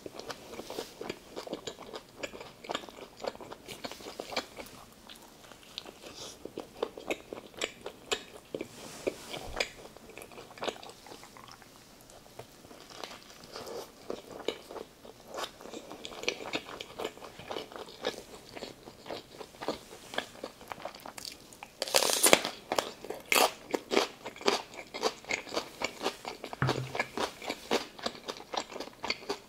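Close-miked chewing of a homemade cheeseburger: repeated bites and a steady run of short chewing clicks and crunches, with a louder burst of bites about three quarters of the way through.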